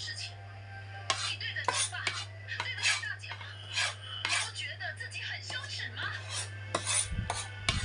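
Eating utensils clinking and scraping against dishes during a meal, in quick irregular clinks, over a steady low hum.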